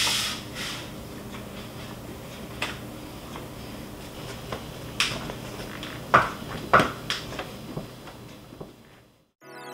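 Light knocks, clicks and rubbing from hand-wiping a car's door and trim with a microfiber towel, heard over a steady low hum, with a short hiss at the start. The sound fades out near the end.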